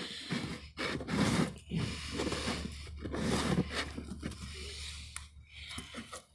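Bare hand digging and scraping through loose soil around a plant's roots, in irregular bursts of scratching and rustling.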